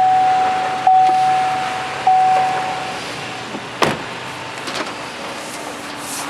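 Vehicle warning chime in the truck's cab: one tone repeats about every second, fading after each strike, and stops about three seconds in over a faint low hum. A single sharp click comes about a second after the chime stops.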